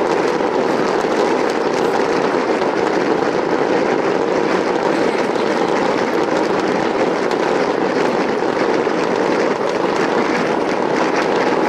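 Distant barrage of fireworks shells bursting in quick succession, a starmine sequence, the bangs merging into a steady rumble with fine crackling on top.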